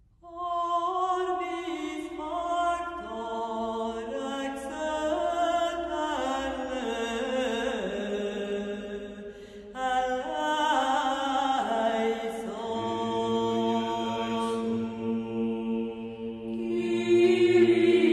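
Background music of sustained choral chanting, slow held notes moving from chord to chord, with a low note joining about two-thirds of the way in and swelling louder near the end.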